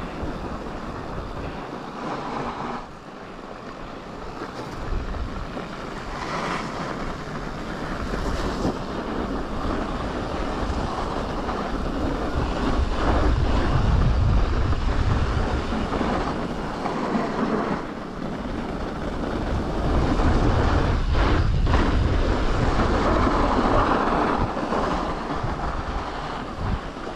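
Wind buffeting the microphone of a camera carried while riding a mountain bike over packed snow and ice, with a low rumble that swells and fades and a few short knocks.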